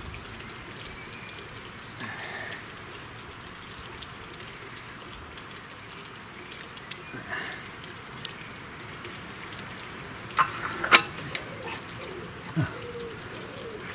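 Hand work on an old stationary engine's ignition while testing for a spark: a few sharp clicks, two loud ones close together about ten seconds in and a smaller one near the end, over a steady background hiss.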